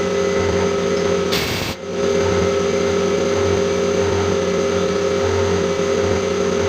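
CNC milling machine running steadily, its spindle and drives giving a steady whine with a pulsing low hum, broken briefly about a second and a half in.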